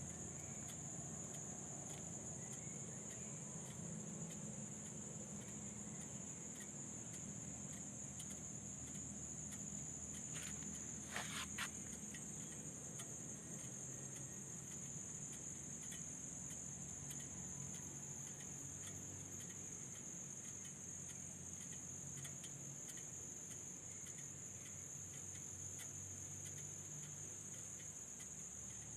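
Insects chirring in a steady, high-pitched drone, with a faint low rumble underneath and a couple of brief clicks about eleven seconds in.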